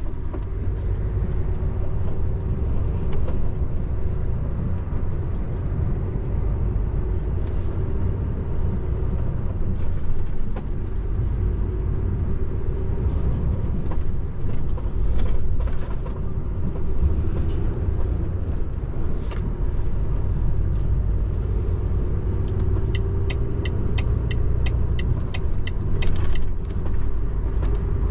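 Heavy truck's diesel engine and road rumble heard from inside the cab while driving, with a few scattered knocks and rattles. Near the end comes a short run of quick high ticks, about four a second.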